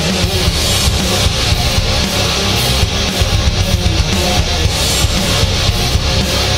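Outro music: loud rock with distorted electric guitar and a heavy low end.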